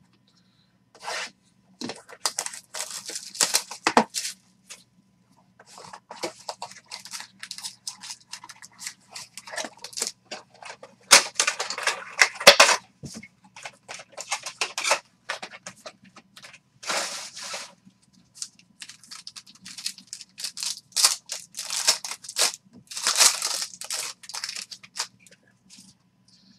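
A Contenders Optic trading-card box and its foil pack being opened by hand: cardboard and foil wrapper rustling, crinkling and tearing in a run of short scratchy bursts with brief pauses, then the cards slid through the fingers.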